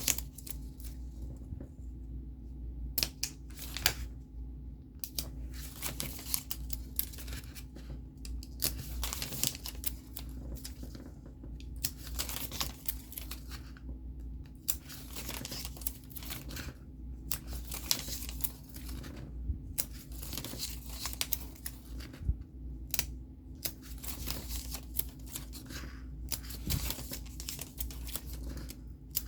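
Paper and plastic craft-kit materials being handled and packed, rustling and crinkling in irregular bursts with short pauses, over a steady low hum.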